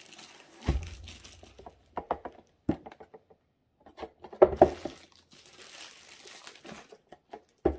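Packaging being handled: a plastic-wrapped rolled canvas and a cardboard kit box crinkle and rustle as they are moved across the table. A few knocks come as things are put down, the loudest about halfway through.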